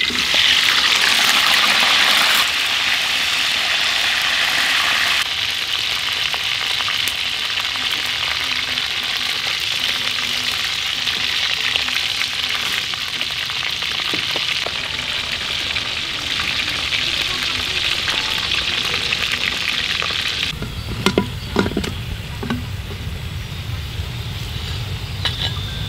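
Whole skinned geckos deep-frying in hot oil in a wok: a loud, steady sizzle, fiercest in the first couple of seconds after they go in, then settling lower. About twenty seconds in the sizzle softens and a low rumble with a few sharp clicks comes in.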